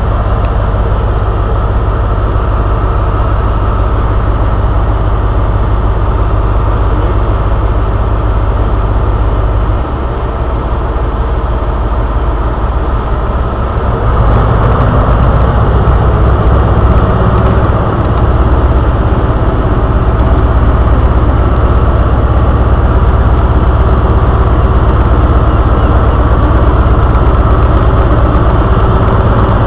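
HST Class 43 power car's diesel engine idling at the platform. About ten seconds in the note changes, and from about fourteen seconds it runs louder and harder as the train pulls away.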